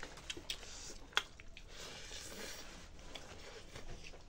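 Fingers mixing rice and chicken curry on a metal plate: soft squishing with a few light clicks against the plate, the sharpest about a second in.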